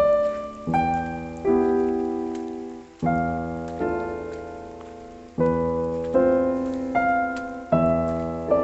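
Slow background piano music: single notes and chords struck one after another, each ringing and fading before the next.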